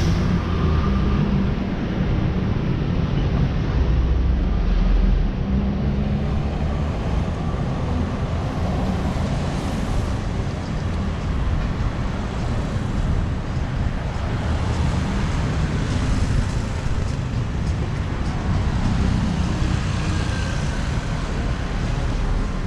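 Steady street traffic noise, with car engines and tyres passing along the road.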